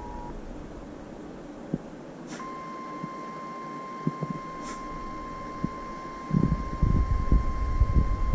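Emergency alert tones. The two-tone attention signal cuts off just at the start. About two seconds later a steady single-pitch alert tone begins, the 1050 Hz NOAA Weather Radio warning alarm, and it holds to the end. From about six seconds in it is joined by low, crackling static with scattered clicks.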